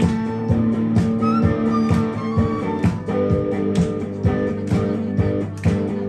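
A band plays a song's instrumental intro live: a semi-acoustic guitar strums in a steady beat while a flute plays a melody over it.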